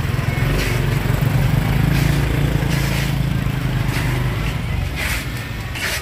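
Motorcycle engine running close by as it passes in street traffic, loudest about two seconds in and then fading.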